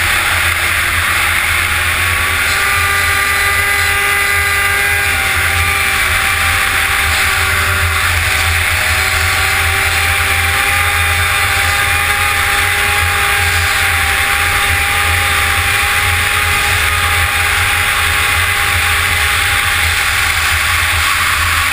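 Yamaha SXR 700's three-cylinder two-stroke snowmobile engine running steadily at cruising speed, heard from the rider's helmet. The engine note falls near the end as the throttle eases.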